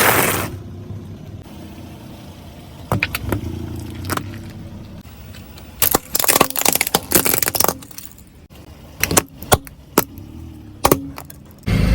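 A car's tyres rolling over and crushing brittle objects, heard as clusters of sharp cracks and crunches over the low, steady sound of the car's engine.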